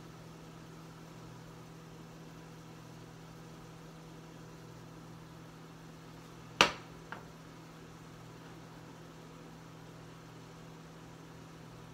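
Steady low hum with a sharp knock about six and a half seconds in and a lighter one half a second later: a spatula knocking against a nonstick skillet.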